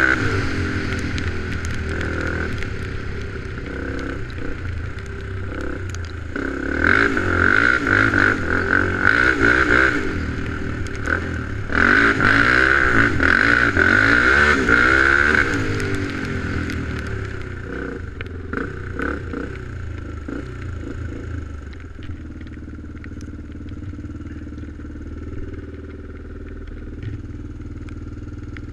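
ATV engine running under throttle, its pitch rising and falling as it revs, loudest in two long stretches of revving in the first half. It then settles to a quieter, steadier run for the last several seconds.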